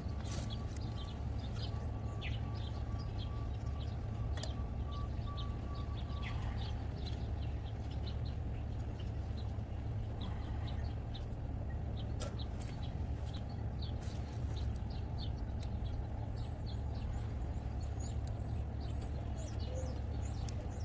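Birds chirping again and again over a steady low machine hum, with a faint steady tone for the first six seconds or so.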